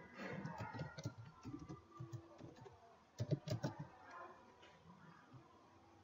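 Computer keyboard typing: scattered key taps, with a quick run of louder clicks about three seconds in.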